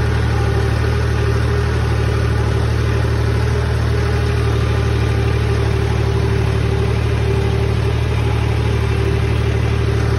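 Farm tractor's diesel engine running steadily, heard close from the driver's seat: an even low drone with a steady whine on top.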